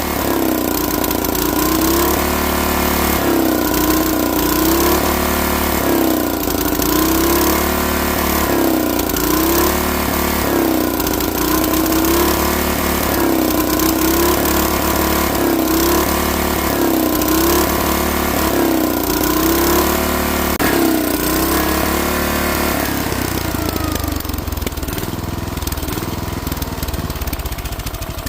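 Lawn mower engine surging, its speed rising and falling about every one and a half seconds, then settling into a steadier, slightly quieter run near the end. The owner calls it a rich surge, not a lean one, from the reinstalled carburetor.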